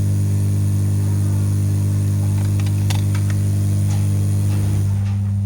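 SMD hot-air rework station running with a loud, steady low hum. A few light clicks come about halfway through, and the hum's tone shifts slightly near the end.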